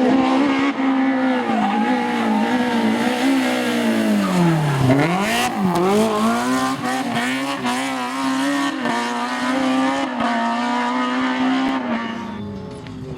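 BMW E30 rally car engine at high revs, its pitch dipping sharply about five seconds in as the driver lifts and shifts, then climbing again, before the sound fades near the end as the car moves away.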